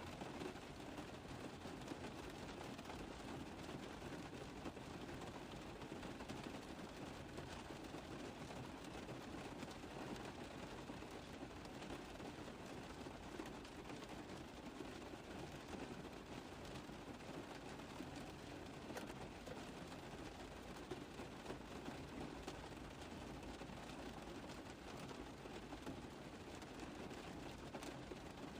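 Rain tapping on a car roof: a steady, dense patter of many small drop impacts that holds even throughout.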